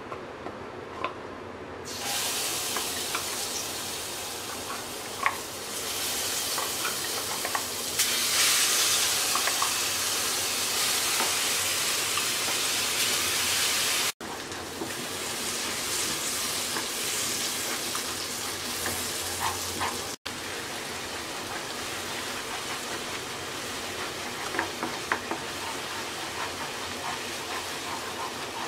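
Wet spice chutney paste sizzling as it fries in hot mustard oil in a non-stick pan, with a wooden spatula scraping and stirring through it. The sizzle starts suddenly about two seconds in, when the paste meets the oil, and cuts out for an instant twice.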